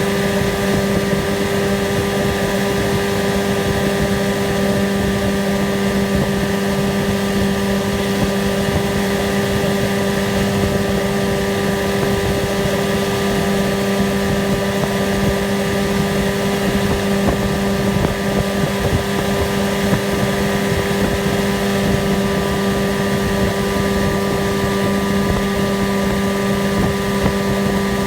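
1982 Evinrude 9.9 hp two-cylinder two-stroke outboard motor running steadily under way, an even drone that holds the same pitch throughout.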